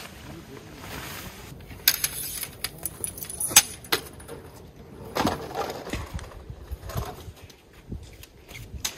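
Zed Wild Dome EX tent fabric rustling and crinkling as it is spread out, with sharp clacks of tent-pole sections knocking together and against a wooden deck; the loudest clack comes about three and a half seconds in.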